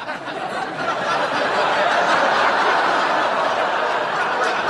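Studio audience laughing: a steady crowd laugh that swells about a second in.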